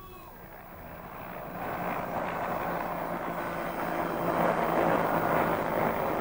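Helicopter flying past close by: rotor and engine noise swells, is loudest near the end, then drops away.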